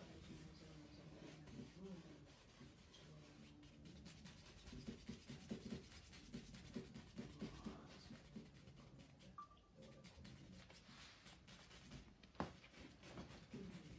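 Faint scratching of a paintbrush laying oil paint onto a stretched canvas in repeated short strokes.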